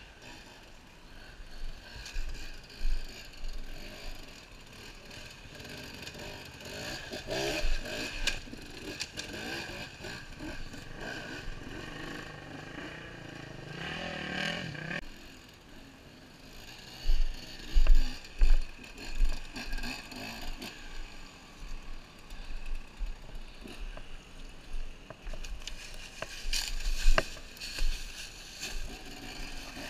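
Beta 250 RR dirt bike engine revving up and down over the rocky trail, with loud low bumps and knocks from the camera being carried, heaviest a little past the middle.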